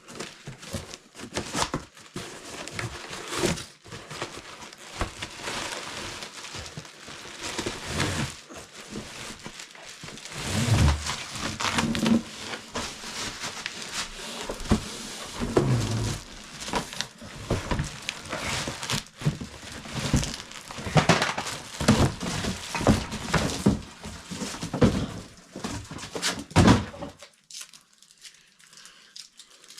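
Shipping packaging being torn open and handled: continual rustling, crinkling, scraping and knocking of cardboard and packing material. The handling stops suddenly near the end.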